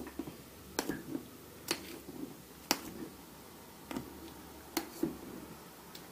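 Metal potato masher working boiled potatoes in an enamel pot: soft squelching of the mash, with a sharp knock about once a second as the masher strikes the pot.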